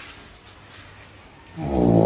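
Snoring: after a quiet pause, a loud, steady-pitched snore starts about one and a half seconds in and keeps going.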